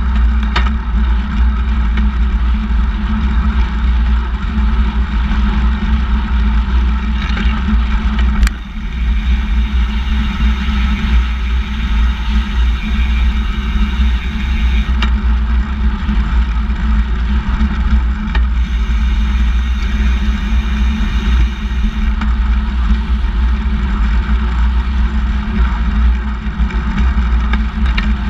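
Steady rumble of wind and road noise from a handbike rolling on asphalt, heard through a camera mounted on the bike, with one sharp click about eight and a half seconds in.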